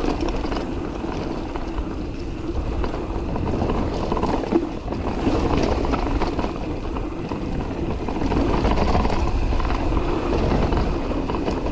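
Mountain bike riding fast down a dirt trail: a steady rush of tyres rolling over packed dirt and leaf litter, with short rattles and knocks from the bike over bumps and wind on the microphone.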